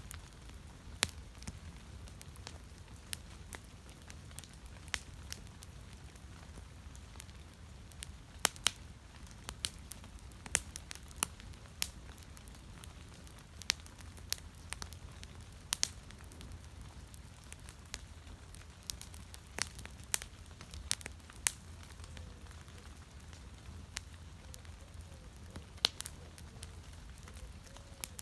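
Fire crackling: irregular sharp pops and snaps, a few each second at most, over a low steady rumble.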